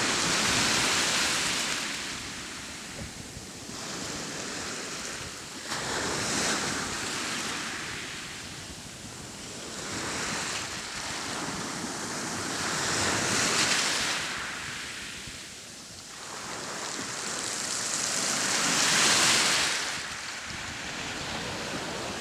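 Sea waves breaking and washing on the shore. Four surges swell and fade, about six seconds apart.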